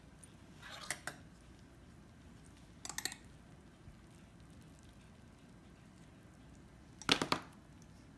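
Serving spatula and metal fork scraping and clinking against a glass baking dish as a slice of baked fettuccine is cut and lifted out. There are three short scrapes: about a second in, about three seconds in, and the loudest about seven seconds in.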